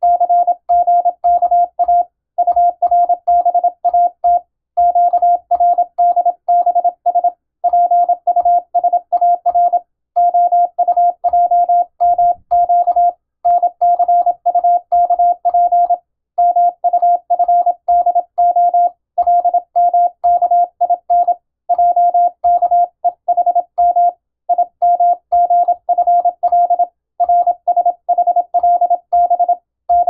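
Morse code sent by hand on a telegraph key: a steady mid-pitched sidetone beep keyed into quick dots and dashes, coming in five-letter code groups with short pauses between the groups. Faint low clicks of the key sound under the beeps.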